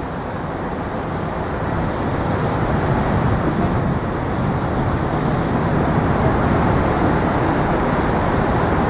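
Steady road traffic noise from passing vehicles, growing a little louder over the first few seconds and then holding.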